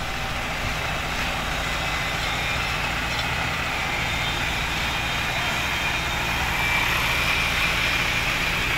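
Heavy-haulage truck's diesel engine running steadily with a low rumble, and a thin high whine joining in about six seconds in.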